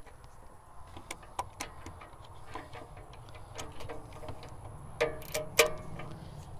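Irregular metallic clicks and clinks from a ratchet-head torque wrench on an oxygen-sensor socket as a new O2 sensor is tightened into the exhaust manifold. A quick run of three sharper clicks comes about five seconds in.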